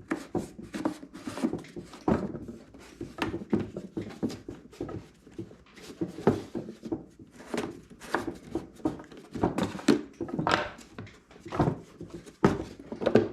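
Irregular clicks, knocks and light clattering of tools and small parts being handled while a diesel heater is put back together.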